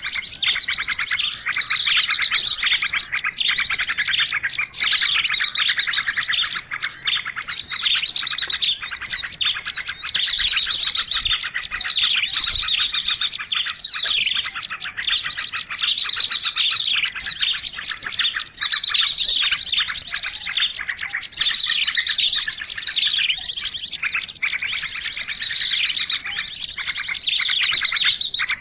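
Dense chorus of many small songbirds chirping and twittering over one another without a break, many short notes sliding down in pitch. This is a bird-luring (pikat) call recording played to draw small birds in.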